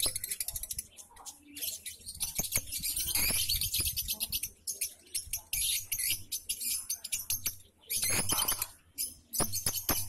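A flock of caged lovebirds chattering: rapid, high-pitched chirps and squeaks that come in bursts with short lulls between.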